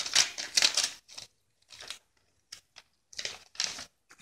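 Paper rustling and crinkling in short bursts as a paper envelope is opened and the cards inside are pulled out and handled. The rustling is busiest in the first second, with another burst about three seconds in.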